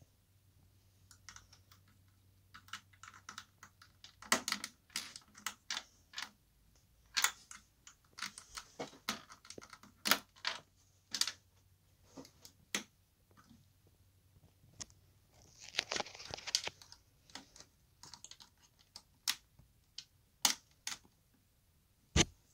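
LEGO plastic pieces being handled and pressed onto a minifigure on a baseplate: irregular sharp clicks and taps, with a brief run of rattling about 16 seconds in and a firm snap near the end.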